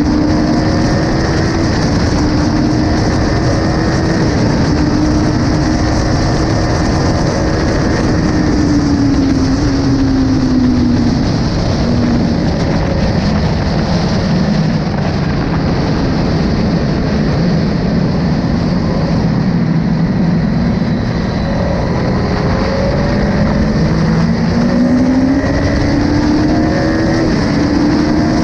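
Triumph Tiger 800 XCx's three-cylinder engine at high revs, falling away as the bike slows into a corner, running lower through the bend, then climbing again as it accelerates out. Heavy wind rush on the microphone.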